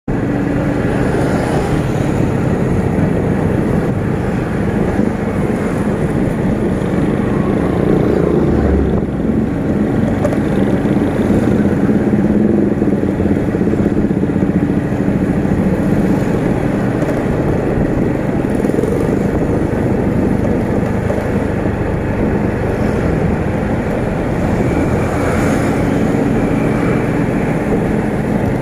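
Motorcycle engine running steadily while riding, heard from the rider's own bike together with road and wind noise. Other motorcycles and cars in traffic around it add to the sound.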